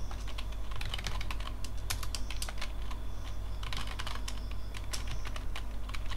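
Typing on a computer keyboard: keystrokes clicking in quick runs with short pauses between, over a steady low hum.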